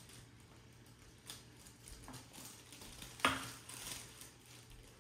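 Nearly empty hoisin sauce bottle being knocked and shaken over a bowl to get the last sauce out: a few faint knocks, then one sharper clack a little past three seconds in.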